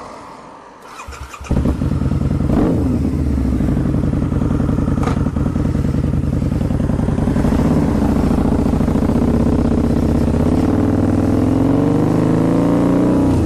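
Harley-Davidson V-Rod V-twin running through non-baffled TAB Performance slip-on mufflers. It comes in abruptly and loud about a second and a half in, then holds a steady, deep exhaust note that climbs a little in pitch near the end.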